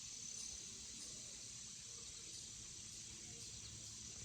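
Faint outdoor background of insects trilling: a steady, thin high-pitched drone with no break, over a low rumble.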